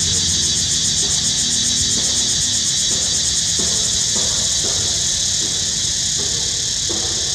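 A chorus of insects calling in a steady, high-pitched buzzing drone.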